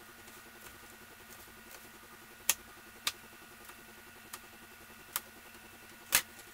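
Chef's knife chopping tomatoes on a plastic cutting board: about five sharp, irregular knocks of the blade striking the board, the last and loudest as the knife is laid down on the wooden table. A faint steady hum underneath.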